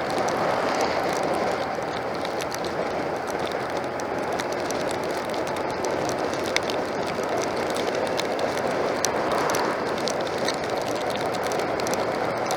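Steady rush of wind and heavy rain heard while riding on two wheels, with raindrops striking the microphone as scattered sharp ticks.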